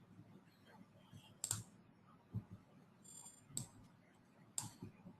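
Faint, sharp clicks of a computer mouse, three of them a second or two apart, with a brief high, thin buzz about three seconds in.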